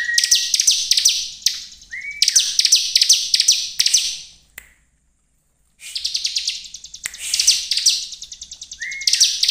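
Ciblek (a prinia) singing: bursts of rapid, high, trilled chirping, each a second or two long, with a silent gap of about a second near the middle.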